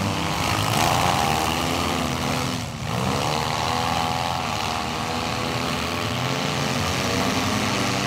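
Engines of several compact demolition derby cars running and revving at once, their pitches rising and falling as the cars manoeuvre, with a brief dip about three seconds in.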